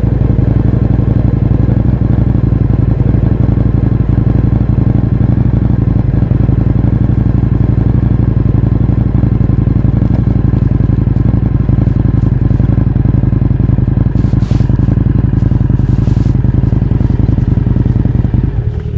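Indian FTR 1200's V-twin, running through an Akrapovič exhaust with the baffles removed, idling steadily at one even pitch. The sound falls away right at the end.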